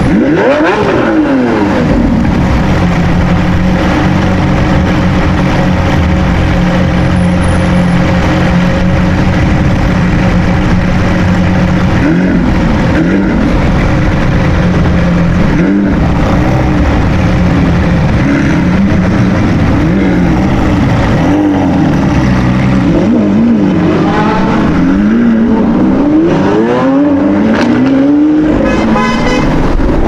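Supercar engine running at a steady note for several seconds, then revving up and down. Near the end come repeated rising pulls, each dropping back, as it accelerates through the gears.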